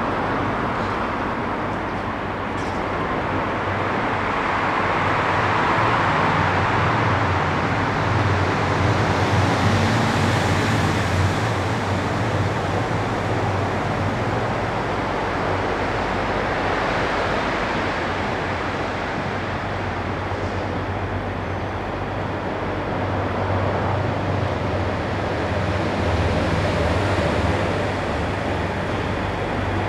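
Diesel locomotive engine running with a low hum as the locomotive approaches slowly, hauling unpowered cars. The hum grows stronger in the last few seconds, over a steady rush of road traffic.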